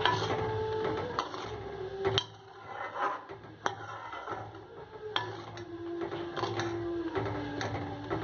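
A metal ladle scraping and knocking against the side of a metal cooking pot while a simmering broth is stirred, with a sharp clink every second or so. A steady low hum runs underneath, dropping in pitch near the end.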